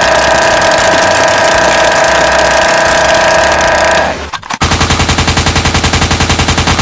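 A loud, steady noisy sound with several held tones for about four seconds. After a brief dip it gives way to rapid automatic gunfire, about a dozen shots a second.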